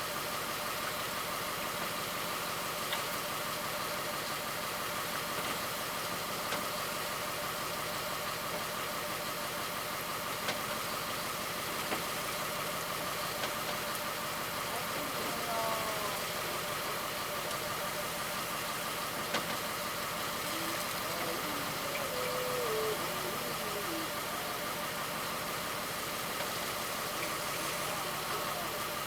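A fishing boat's engine running steadily at low revs, an even drone.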